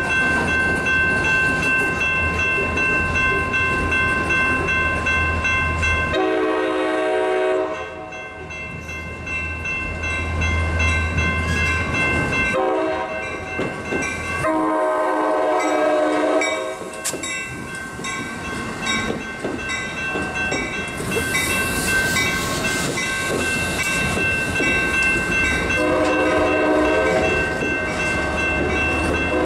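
Train rolling past on street-level track with a steady rumble and a steady high-pitched ringing tone underneath. A train horn sounds four separate blasts of one to two seconds each, spread through the passage.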